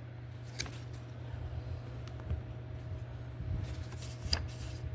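Quiet room tone with a steady low hum and a few faint clicks and handling noises, about a second in and again near the end.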